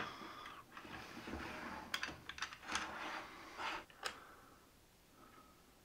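Light clicks and faint scraping of metal parts being handled as the aluminum fence is set on an Incra Miter 1000 miter gauge and an Allen key is fitted into one of its screws. The clicks stop about four seconds in.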